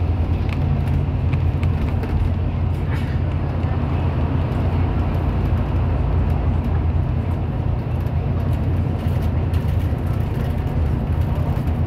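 Steady low drone of a bus's engine and road noise, heard from inside the cabin while it cruises at speed.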